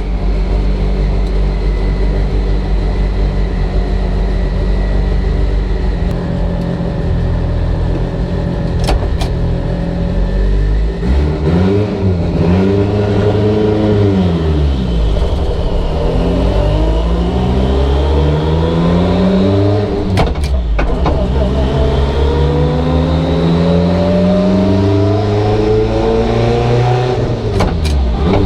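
Mitsubishi Evo VIII's built, turbocharged 2.0-litre four-cylinder running on the dyno. It runs steadily at first, revs up and back down once, then climbs in pitch through a gear and drops with a sharp clunk about twenty seconds in before climbing again. Another clunk and drop comes near the end.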